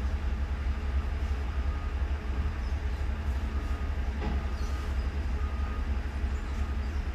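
Diesel engine of a large container forklift running under load as it carries and lowers a shipping container: a steady low rumble.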